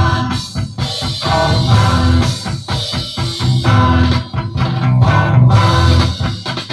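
Instrumental passage of a mid-1960s beat-group record: lead and rhythm electric guitars, bass guitar and drum kit playing together with a steady beat.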